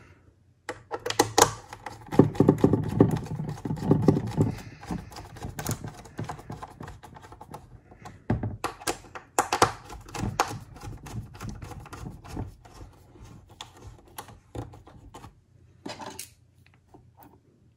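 Clicks, taps and light knocks of the SSD's plastic mounting brackets and screws being fitted back into an opened iMac with a small screwdriver. They are densest about two to five seconds in, then thin out to scattered single clicks.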